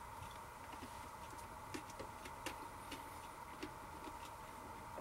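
Faint, irregular crunching clicks of a hard, crunchy taralli (a ring-shaped Italian breadstick) being chewed.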